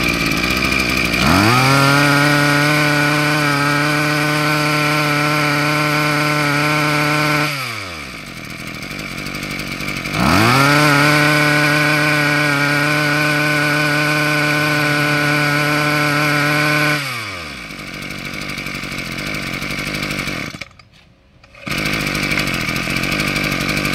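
Hitachi (Hikoki) CG24ECP 24 cc two-stroke brush cutter engine running at idle and revved twice to full throttle, each time rising in pitch, holding steady for about six seconds, then falling back to idle. Near the end it stops for about a second and is restarted with one pull of the assisted recoil starter, catching at once.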